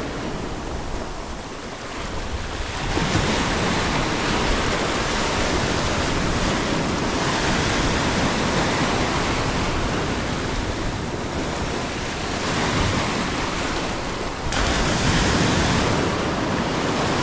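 Ocean surf breaking and washing up a sandy beach in a steady rushing swash that swells and ebbs, jumping suddenly louder near the end.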